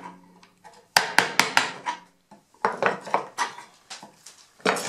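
Light mallet blows on a narrow 6 mm chisel chopping out a slot in hardwood: two quick runs of about five sharp taps each, and one more tap near the end. The chisel is being angled slightly toward the middle to undercut the slot at the scribed line.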